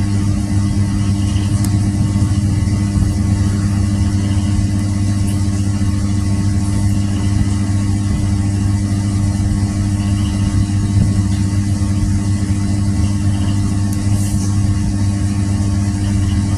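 A motor or engine running steadily: a loud, unchanging low drone at a constant pitch.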